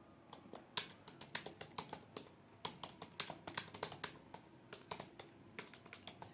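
Computer keyboard keys clicking as someone touch-types fast, in an uneven run of about four to six keystrokes a second, during typing-test practice.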